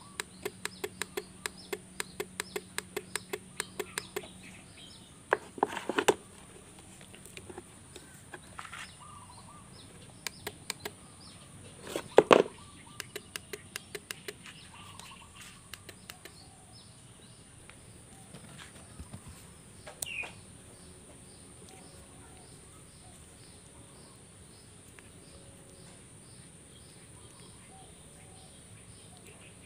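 Yamaha motorcycle's starter relay clicking rapidly, about five clicks a second, instead of cranking the engine: the 'ctik ctik' fault that turned out not to be the starter motor. A second run of clicks follows about halfway through, with a few handling knocks between.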